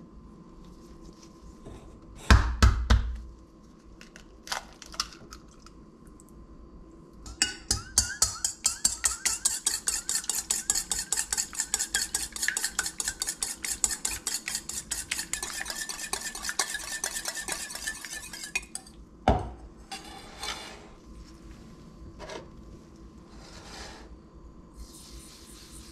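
Wire whisk beating eggs in a stainless steel mixing bowl: a quick, even run of metallic clinking strokes, about five a second, lasting roughly ten seconds. A sharp knock on the bowl comes shortly after the beating, and a louder knock and rattle come earlier, about two seconds in.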